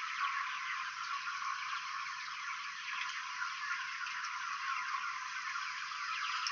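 Underwater acoustic-monitoring recording from a salmon tank played back: a dense, thin hiss of fine crackles and clicks. This is the raised noise while a school class visits the research station.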